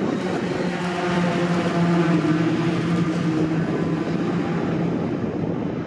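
Racing pickup truck engines running at high revs as the field passes, one engine note held steady for several seconds and then fading away.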